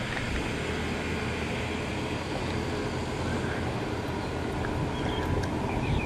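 Car driving along a street: a steady mix of engine, tyre and wind noise.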